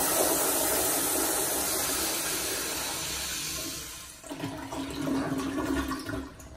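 Early-1990s American Standard Madera flushometer toilet flushing: a loud rush of water through the bowl that fades and drops off about four seconds in. A quieter refill with a faint steady tone follows and cuts off near the end as the flush valve closes.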